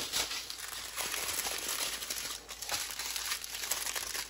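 Small plastic zip bags of diamond-painting drills crinkling and rustling as they are handled and pulled apart, with many small crackles.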